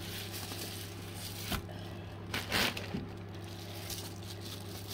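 Cardboard sleeve and bubble-wrapped palette being handled: soft rustling and crinkling of packaging, with a louder rustle about two and a half seconds in, over a steady low hum.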